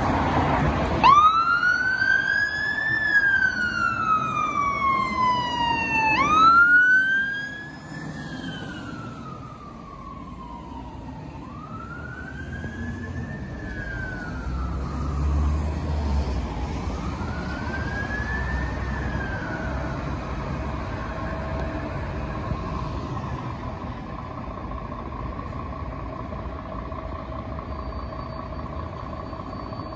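Fire engine siren sounding a slow wail that rises quickly and falls slowly, about five seconds per cycle, starting about a second in. It is loud for the first two cycles and grows much fainter after about seven seconds, over steady vehicle engine noise.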